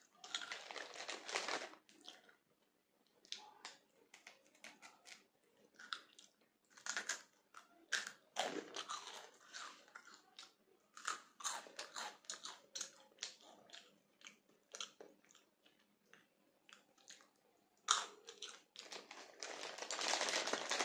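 Crunchy Kurkure corn snack pieces being bitten and chewed, in irregular crunches with pauses between bites. Near the end the snack packet rustles as a hand rummages in it.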